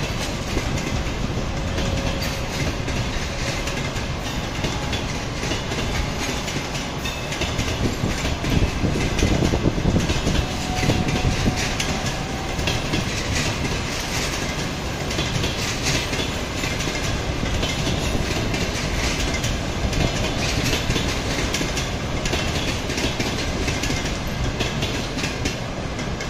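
Passenger coaches of a long train rolling past, wheels clattering over the rail joints in a steady rumble, a little louder about eight to eleven seconds in.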